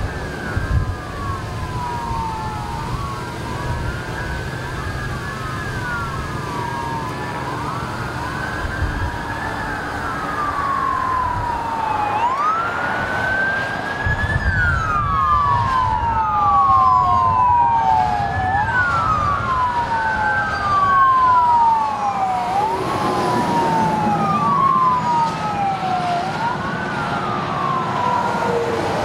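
Several police car sirens wailing at once, their slow rising and falling tones overlapping, over the rumble of vehicles on the freeway. The sirens grow louder in the middle as the pursuit passes close.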